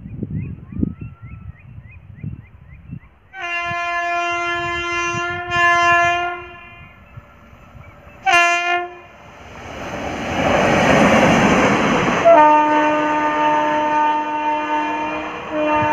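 Indian Railways WAP-7 electric locomotive horn: a long blast with a brief break as a passenger train approaches, then a short toot, then a rising rush of noise as the train passes at speed. Another long horn blast follows near the end over the steady noise of passenger coaches running by.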